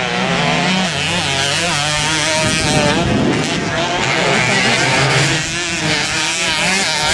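Several motocross dirt bikes racing round a dirt track, their engines revving up and down over one another as riders work the throttle through the course.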